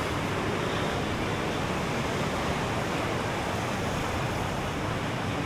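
Sea surf washing onto a sandy beach: a steady, even rush of breaking waves.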